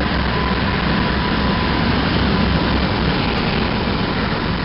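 Diesel-electric locomotive engine running with a steady deep rumble as the locomotive moves slowly past.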